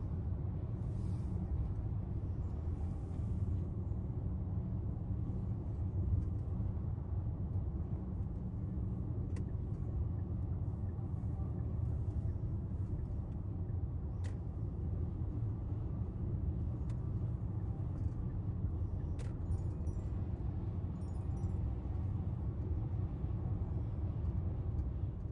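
Steady low rumble of road vehicles, even throughout, with a few faint short ticks.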